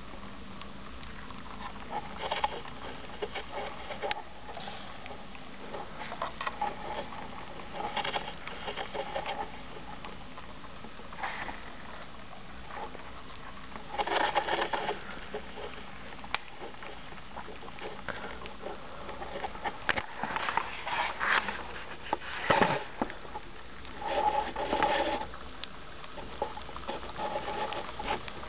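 Steady room hiss with scattered short rustles and clicks, heaviest in a few clusters.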